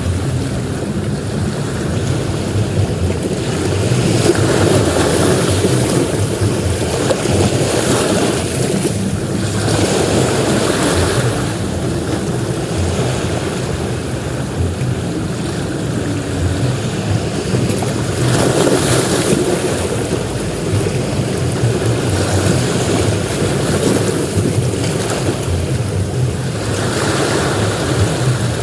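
Ocean surf breaking on a beach: a continuous rushing wash with a deep rumble, swelling louder as a wave comes in every several seconds.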